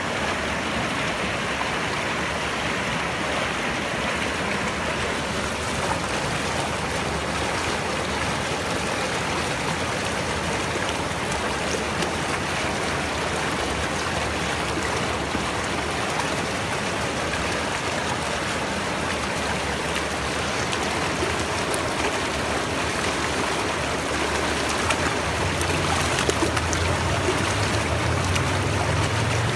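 Fast, shallow river rushing over rocks, a steady wash of water. A low rumble rises near the end.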